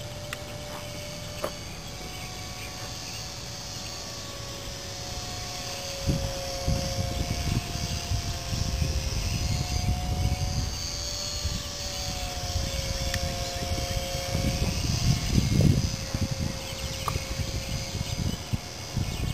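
Carl Goldberg Husky 400, an electric RC park-flyer plane, flying with a steady motor-and-propeller whine whose pitch wavers slowly as it moves about the sky. A low buffeting rumble comes in about six seconds in and is loudest around fifteen seconds.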